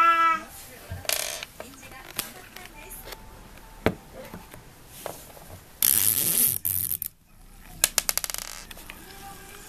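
Clockwork mechanism of a pull-string shaking Yoshi plush toy running, with scattered clicks and knocks, a loud buzzing rattle about six seconds in, and a quick run of clicks that slows and stops near the end.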